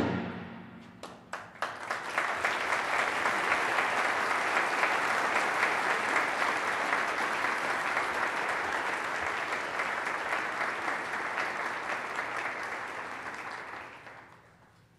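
The final chord of a concert band dies away in the hall's reverberation, then an audience applauds. A few scattered claps come about a second in, full applause by two seconds, and it fades out shortly before the end.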